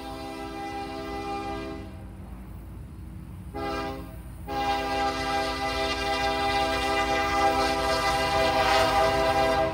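Union Pacific diesel freight locomotive's multi-chime air horn sounding for a grade crossing: a long blast that stops about two seconds in, a short blast around three and a half seconds, then a long, louder blast from about four and a half seconds, over the low rumble of the approaching train.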